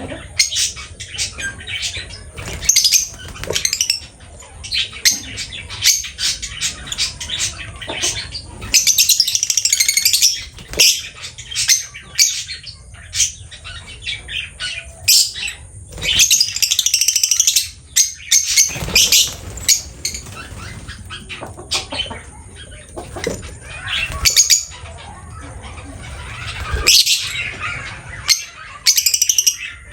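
Pet lovebird chattering and squawking in shrill bursts, with many short clicks and taps between them.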